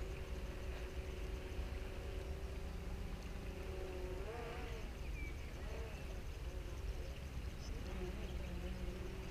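DJI Phantom 3 quadcopter's propellers humming in flight, heard from the ground, the pitch wavering up and down a few times mid-way as the drone manoeuvres, over a low rumble.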